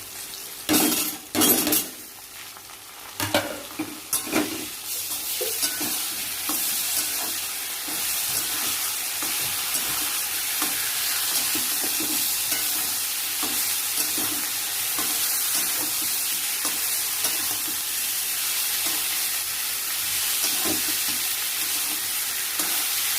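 Vegetables with ginger and chilli paste frying in hot oil in a pan, stirred with a spatula. A few loud knocks and scrapes against the pan come in the first few seconds, then a steady sizzle with light stirring scrapes.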